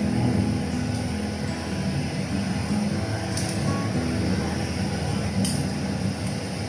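Steady low rumble of kitchen cooking noise, with a couple of light clicks.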